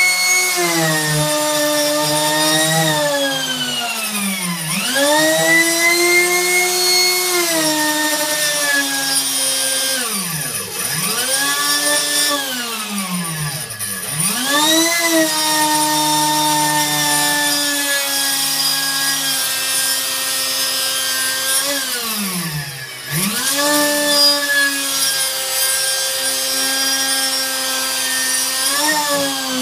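Handheld electric power tool cutting through the wooden pinblock of a Steinway concert grand piano. Its motor whine repeatedly sags in pitch as the cutter bogs down in the wood, then climbs back, about six times.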